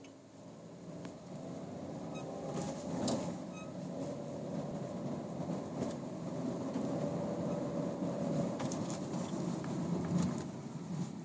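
Car cabin noise at low road speed, with a faint squeaking from the speedometer, a squeak that appears between 20 and 40 km/h. A few light clicks and knocks are mixed in.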